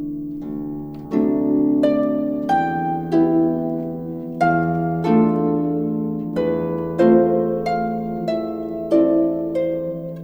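Slow instrumental music of plucked string notes, each struck sharply and ringing away, over a steady low held note.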